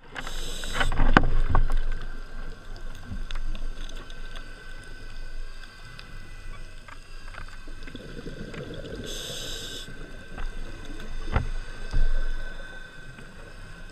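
Scuba diver's regulator heard underwater: a hiss of in-breath near the start and again about nine seconds in, with exhaled bubbles burbling around the second one, and a few sharp knocks.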